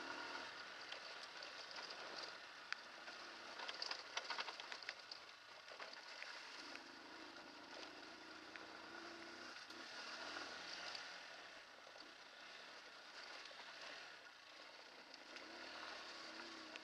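Hartford VR150 150cc single-cylinder motorcycle riding over a loose, stony dirt track: faint engine under a steady rushing noise, with clicks and rattles from the bike and gravel, busiest around four seconds in.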